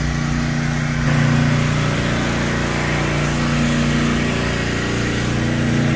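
A machine running steadily with a low droning hum, a little louder from about a second in.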